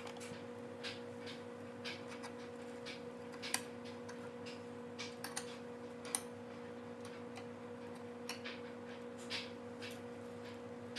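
Irregular light ticks and clicks over a steady low hum.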